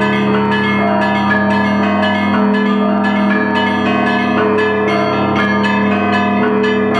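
Russian Orthodox church bells of the Pskov-Caves Monastery being rung: small bells struck in a quick, even rhythm of about two to three strokes a second over the long, sustained ring of deeper bells.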